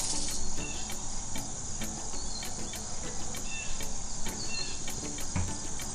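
Steady high-pitched insect trilling, cricket-like, with soft ticks a few times a second and a few faint short chirps.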